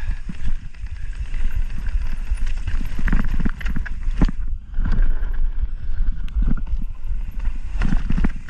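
2023 Pivot Switchblade mountain bike descending a rock slab: heavy wind rumble on the helmet-camera microphone, with tyre noise and irregular rattling knocks from the bike as it rolls over the rock.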